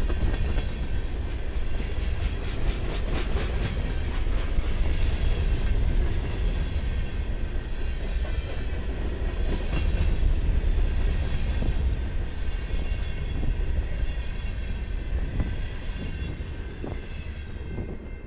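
Covered hopper cars of a Norfolk Southern freight train rolling past with a steady low rumble, their wheels clacking over rail joints and a faint steady squeal above. The sound drops away near the end as the last car goes by.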